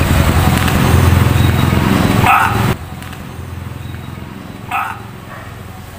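Two short barks, like a dog's, about two and a half and five seconds in, over a loud low rumble of street traffic that stops abruptly a little before the three-second mark.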